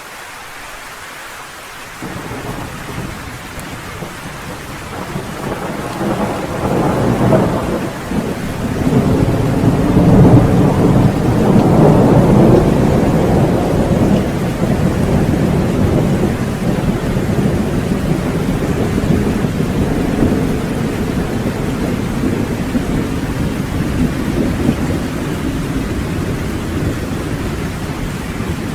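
Steady rain with a long roll of thunder that comes in about two seconds in, builds to its loudest around the middle and slowly dies away.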